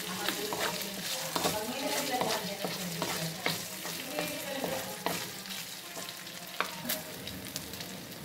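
Pork pieces sizzling as they fry in a wok in their own rendered fat with a little added oil, while a spatula stirs and scrapes them across the pan in short, repeated strokes.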